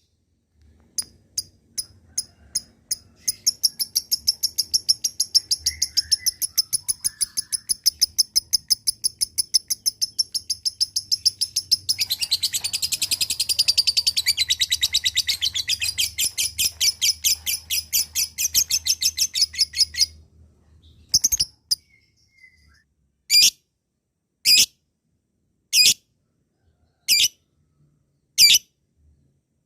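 Lovebird ngekek: a few scattered shrill chirps quicken into a long, fast, even run of calls for over fifteen seconds, which stops suddenly. After that come single sharp chirps about once every second and a half.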